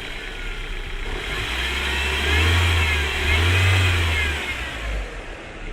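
1.8T turbocharged four-cylinder engine blipped twice from idle, settling back to idle, with a whine that rises and falls with the revs: the strange noise the owner is showing.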